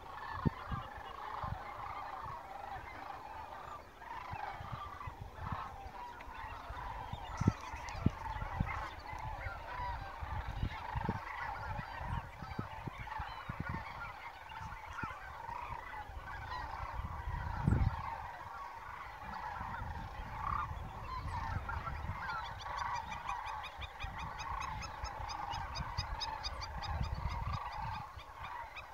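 A large flock of geese calling continuously in a dense chorus of overlapping honks. There are occasional low thumps, and near the end a fast, high ticking runs for a few seconds.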